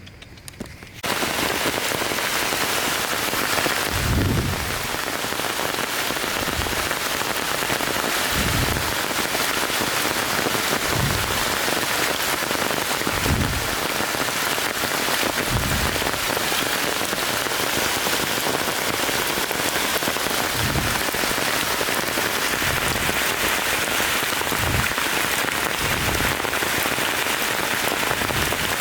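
Steady heavy rain falling, starting abruptly about a second in, with occasional low thuds every few seconds.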